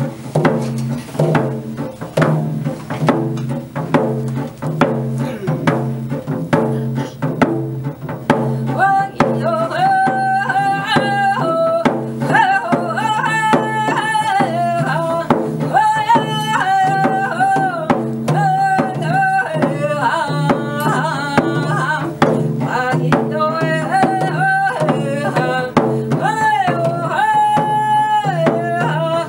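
Hand-held frame drum beaten in a steady beat, with a woman's voice coming in about nine seconds in to sing a song over it.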